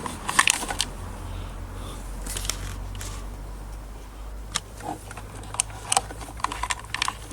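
Scattered small clicks and light rustling of hands pulling wires and spade connectors back through the housing of a Kenwood Chef Elite KVC51 stand mixer to free its speed controller, over a low steady hum.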